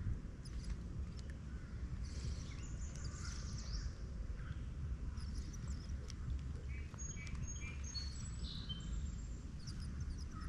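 Outdoor lake ambience: a steady low rumble, with a bird chirping several short high notes about seven to nine seconds in.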